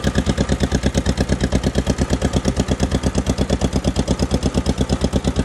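John Deere 420W tractor's two-cylinder engine running steadily, with an even pulse of about eight beats a second.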